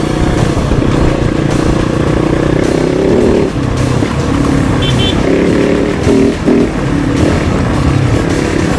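KOVE 450 Rally's single-cylinder engine running under way off-road, its note rising and falling with the throttle, with a brief dip about three and a half seconds in.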